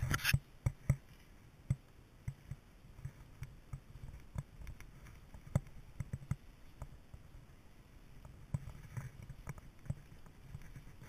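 Muffled low rumble of a vehicle, heard through a GoPro housing, with irregular clicks and knocks as it jolts slowly over a rutted dirt track.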